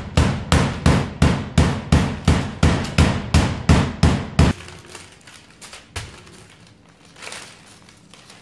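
Wooden rolling pin beating a block of butter wrapped in parchment paper on a stainless steel worktop, flattening the butter slab for puff pastry: steady blows about three a second, stopping about four and a half seconds in. Then quieter rustling of the paper as the pin is rolled over the butter.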